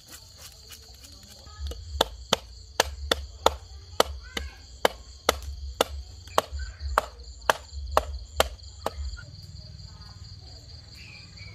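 Cleaver chopping a fish on a stone block, a quick run of about twenty sharp chops with dull thuds underneath, starting about two seconds in and stopping about nine seconds in. Crickets chirr steadily throughout.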